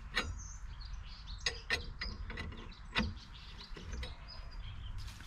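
A few sharp taps and clicks from hand work at the jacked-up rear wheel and floor jack, spaced irregularly, with birds chirping in the background.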